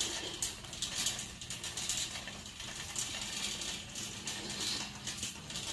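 Shop background sound: a low steady hum under a scatter of small clicks and rustles.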